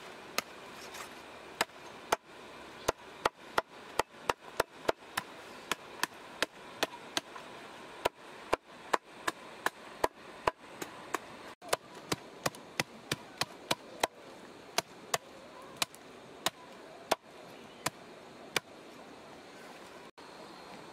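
Large broad-bladed knife chopping grilled whole pig on a chopping block: a long run of sharp chops, about one to two a second, coming faster in places.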